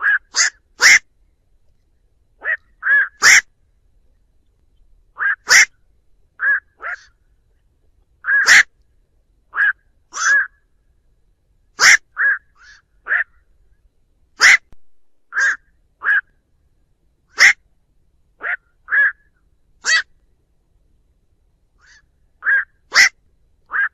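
Black-crowned night heron flock calls: short, sharp 'quok' calls, about two dozen of them, coming singly or in quick twos and threes with short pauses between. This is a recording used as a lure to call the birds in.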